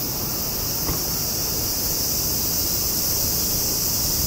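Steady high-pitched chorus of insects, with wind rumbling on the microphone underneath.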